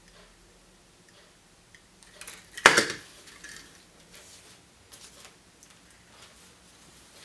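Hands opening and handling a surprise egg and its packaging: soft scattered taps and rustles, with one sharp loud snap about two and a half seconds in.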